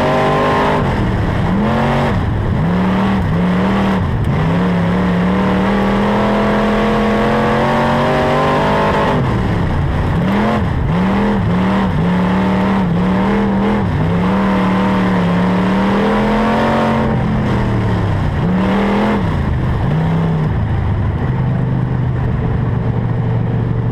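An IMCA Northern Sportmod dirt-track race car's V8 engine, heard from inside the cockpit. The engine note repeatedly dips and climbs back as the throttle is lifted and reapplied, and holds high on the straights. About twenty seconds in it settles to a lower, steady speed.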